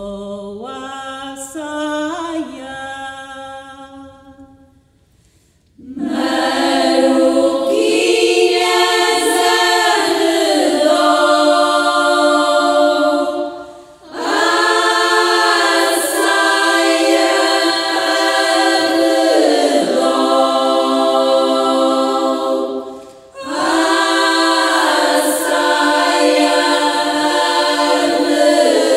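A lone older woman's voice sings the opening line of a Portuguese polyphonic folk song and fades away. About six seconds in, a women's choir comes in a cappella in several voice parts, singing in long phrases with short breaks between them.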